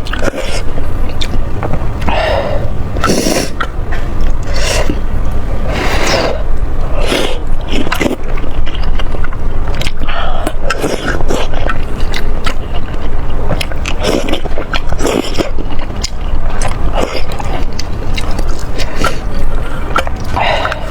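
Close-miked eating sounds: irregular chewing and mouth noises, one after another, over a steady low hum.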